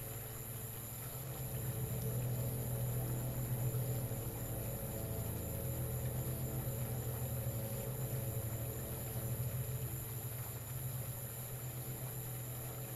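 Steady low electrical buzz with a faint high hiss over it, swelling slightly a couple of seconds in.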